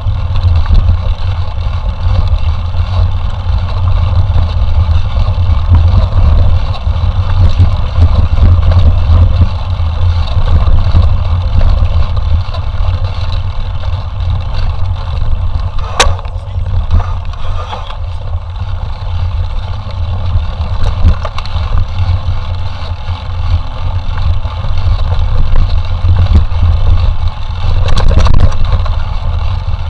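Wind buffeting and rough rumble on a camera microphone riding along on a mountain bike during a cross-country race, loud and continuous with a deep low rumble. A single sharp click about halfway through.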